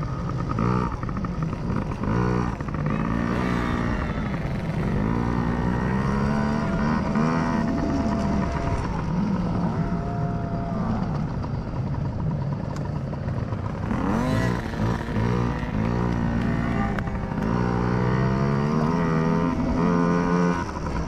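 Small 50cc kids' dirt bike engines revving up and down over and over, the pitch rising and falling every second or two as the throttle is worked.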